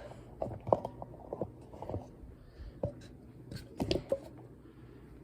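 Scattered light clicks and knocks, with a few small scrapes, of kitchen things being handled and set down.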